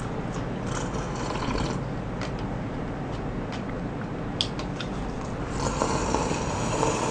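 Close-up slurping and sipping of soup from a small paper cup, with soft mouth clicks and one sharp tick midway; the slurping grows louder and longer near the end.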